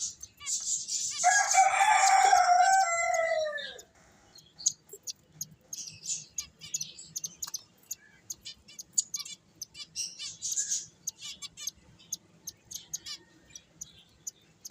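Finches chirping with rapid high chirps throughout. About a second in, a much louder drawn-out call cuts across for about two and a half seconds, falling in pitch at its end.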